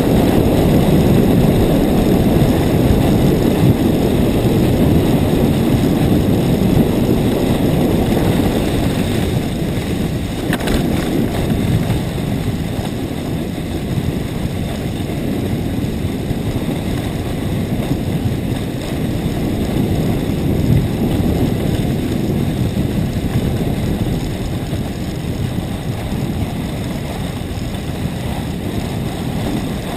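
Steady rush of wind buffeting a helmet-mounted camera's microphone while a sit-down ski cart runs down a snow slope, with the rumble of its skis sliding over the snow. It eases a little after about ten seconds.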